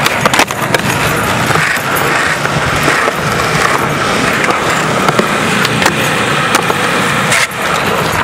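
Skateboard wheels rolling over rough concrete in a steady gritty roar, broken by a few sharp clacks of a board popping and landing. The roar eases off about seven and a half seconds in.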